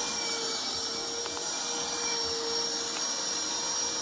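Pressurised water spraying steadily from a broken sink supply in a bathroom, a continuous hiss that the main water shutoff has not stopped.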